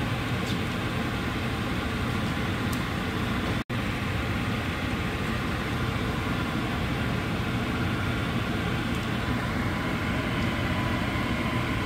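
Steady rushing noise from the kitchen, such as a fan running or a pan cooking on the hob, broken by a momentary dropout about four seconds in.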